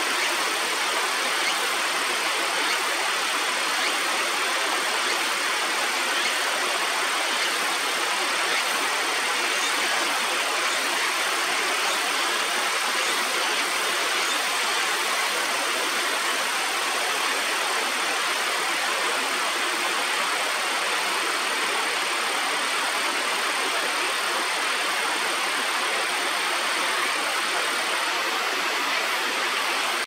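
Steady rush of flowing water, an even unbroken hiss with no rise or fall, with a thin high steady tone over it that stops near the end.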